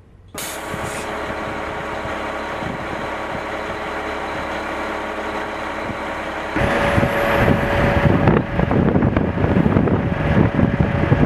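Heavy military vehicle's engine running steadily. About six and a half seconds in it gives way to a louder, rougher engine noise with a steady whine over it.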